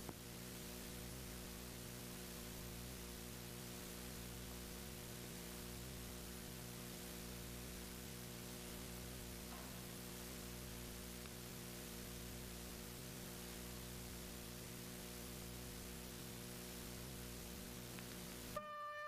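Steady electrical mains hum under a constant hiss, the background noise of an old film soundtrack with no music or speech on it. A click and the start of music come in just before the end.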